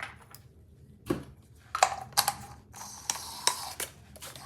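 Small metal outboard-engine parts being handled and set down: a run of irregular clicks, knocks and clatters, with half a dozen sharper strikes over about three seconds.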